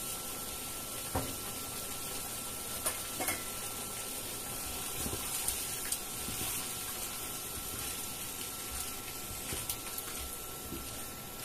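Braised tofu and black fungus simmering in sauce in a pan, a steady hiss, while a spatula stirs the pieces and knocks against the pan with a few short clicks.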